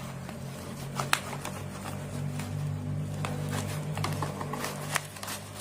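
Scattered clicks and light rustles of plastic puzzle cubes and their packaging being handled, over a steady low hum.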